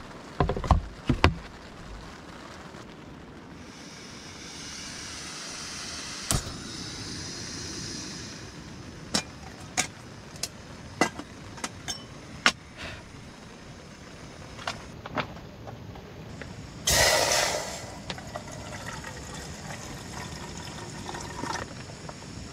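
Rain on a tent's fabric under handling of a camping gas stove and kettle. Near the start comes a clatter of knocks as the stove's hose is fitted to the gas canister. Then water is poured into the kettle for several seconds, followed by scattered clicks as the kettle is handled and a short loud rush about seventeen seconds in.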